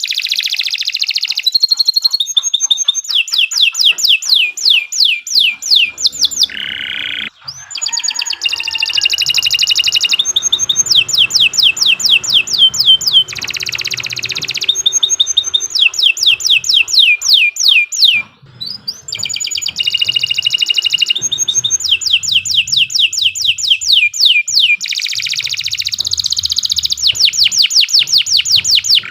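Domestic canary singing a long, unbroken song: fast trills of repeated high notes that each sweep downward, several a second, alternating with buzzy rolls. There are brief breaks about seven and eighteen seconds in.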